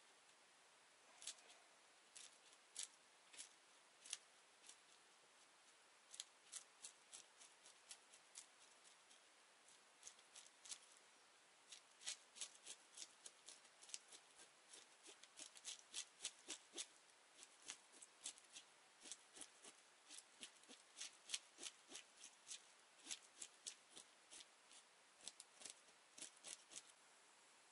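A knife scraping the scales off a fish on a wooden stump: short, sharp rasping strokes, sparse at first and then quicker, about two or three a second, for the second half.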